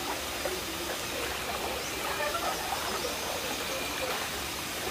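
Water splashing and swirling steadily as a hand paddles in the pool beside a bamboo raft.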